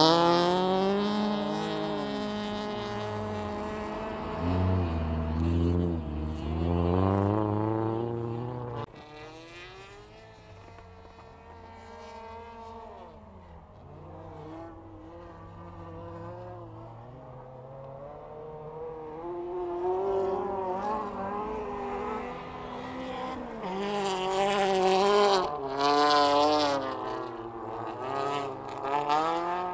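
Ice-racing cars' engines revving up and down through the gears, loud at first. About nine seconds in the sound cuts suddenly to a quieter, more distant engine, and from about two-thirds of the way through, engines grow louder again, revving as cars come past.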